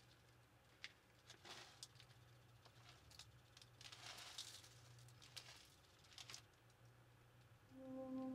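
Faint patter and rustle of shredded cheese and crunchy toppings being sprinkled onto a bowl of chopped salad, with a few light clicks. Soft music with sustained tones comes in near the end.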